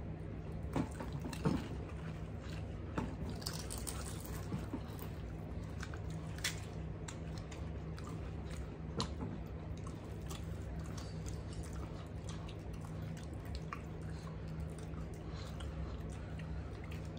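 Crisp pani puri shells being cracked open with fingers, dipped in spiced water and eaten: scattered small crackles and clicks with light dripping of liquid, over a steady low hum.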